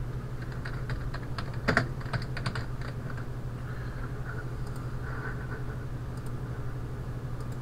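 Typing on a computer keyboard: a short run of keystrokes, one striking louder about two seconds in, over a steady low hum.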